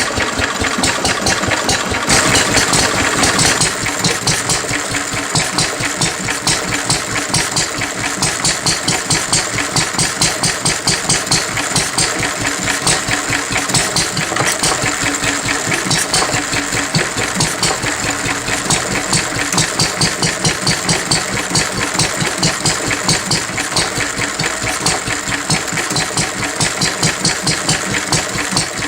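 1937 2hp Lister D single-cylinder stationary engine running steadily with an even, rapid beat, freshly rebuilt and on its first run. It runs a little louder for a second or so about two seconds in.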